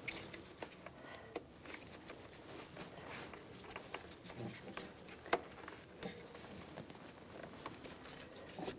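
Faint rustling and a few light clicks of gloved hands working a hose into plastic brackets on an engine's intake manifold.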